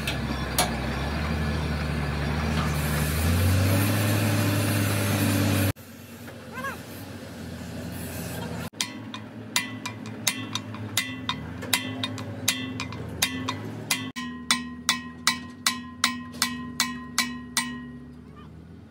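An engine or motor running steadily, its pitch stepping up a few seconds in. Then, after cuts, a run of sharp, ringing hammer strikes on metal, about two to three a second.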